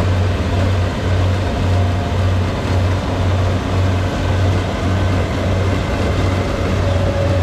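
Kubota rice combine harvester's diesel engine running steadily as the tracked machine drives through flattened rice, with a low hum that pulses unevenly.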